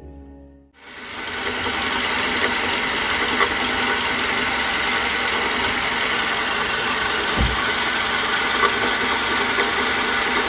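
Toyota Camry engine running in the engine bay, with an abnormal noise from its alternator: a steady, fast, even mechanical rhythm. The noise starts about a second in as music ends, and there is a short low thump about seven seconds in.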